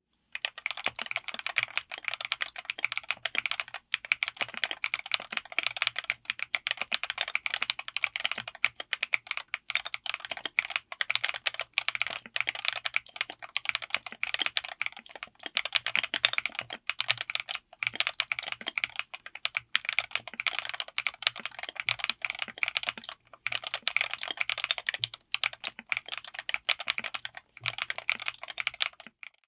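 Continuous fast typing on a mechanical keyboard fitted with Keebz N Cables Ice Kachang linear switches, on an FR4 plate in a Tofu60 aluminium case: a dense run of keystroke clacks with a few brief pauses.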